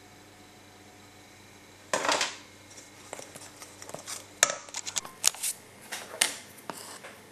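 A plastic tub being handled: a scraping rustle about two seconds in, then a run of sharp clicks and short scrapes of plastic.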